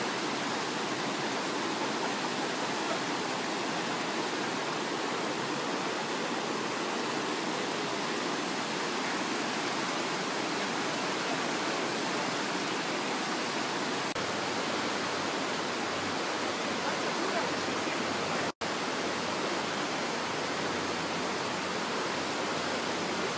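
River rapids rushing over rocks: a steady, unbroken rush of water, cutting out for an instant about three-quarters of the way through.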